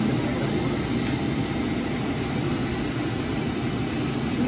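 Steady running noise of a jet aircraft engine, a low rumble with a faint high whine held on one pitch.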